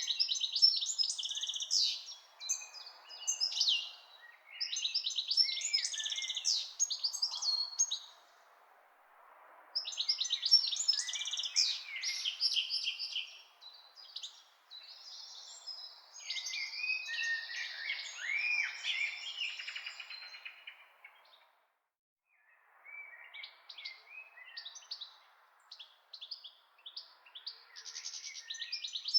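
Birds chirping and twittering in busy overlapping bursts of quick high calls over a faint steady hiss; the sound drops away briefly twice.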